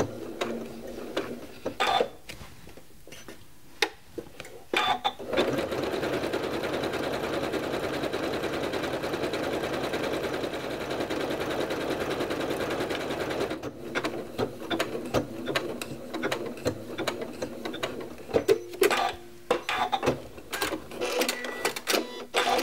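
Janome MC9400 computerized sewing machine stitching a decorative heirloom stitch. It makes a few separate clicks at first, as it locks off the stitches, then runs steadily at speed for about eight seconds. After that it gives a stretch of irregular clicks and knocks.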